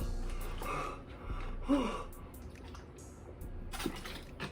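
A man gasping and breathing hard through a mouth burning from very hot chilli sauce, with a short voiced 'ooh'-like sound rising and falling in pitch a little under two seconds in.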